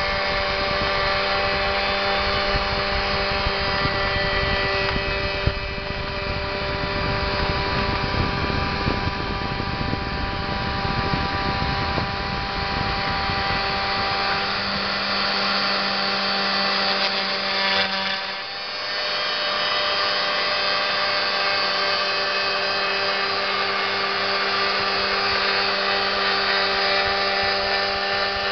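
CNC router spindle milling aluminium sheet with a small end mill: a steady whine of several tones over the gritty noise of the cut. The sound dips briefly about two-thirds of the way through, then carries on.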